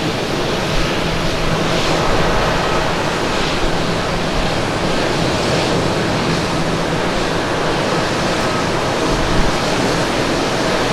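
Boeing 787-9 airliner on its landing rollout: a loud, steady roar from its Rolls-Royce Trent 1000 engines in reverse thrust, with a faint steady whine over it.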